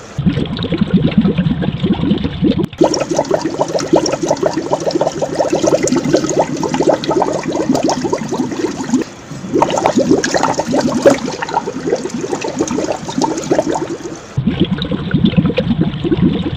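Aquarium air-stone bubbles bubbling steadily, a dense stream of small pops and gurgles, breaking off abruptly and restarting a few times.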